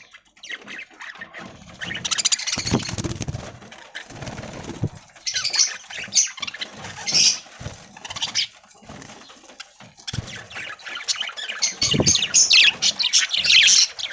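Budgerigars chirping and chattering, many quick high chirps that crowd together near the end, with a few short bursts of wing flapping.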